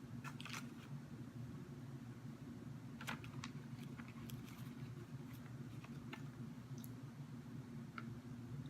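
Faint scattered clicks and crackles over a steady low hum: a pumpkin spice flapjack snack being handled and chewed.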